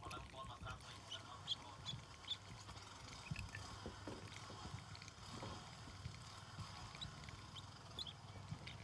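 Newly hatched ducklings peeping in scattered short, high cheeps over a low background rumble.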